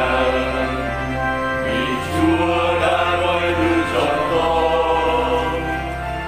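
Vietnamese Catholic hymn sung slowly over an instrumental accompaniment, the voice holding long notes above a steady bass.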